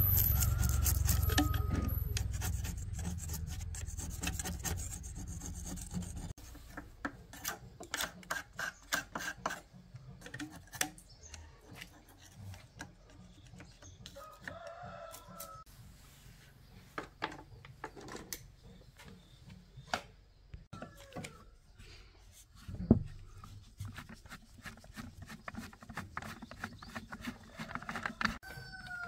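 Irregular scraping and rubbing of a metal blade against the old electric planer's dirty metal housing, with small clicks of tool on metal and a sharp knock past the middle. A low rumble fades away over the first few seconds.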